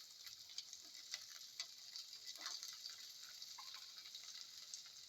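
Shallots frying in hot oil with cumin seeds in a pan, a faint steady sizzle with scattered light clicks.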